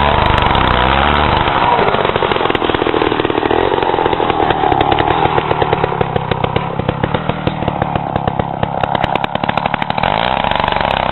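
Gas-powered ice auger running at high revs. About two seconds in its pitch drops as it bogs down boring into thick ice, and it labours on with a fast, uneven beat.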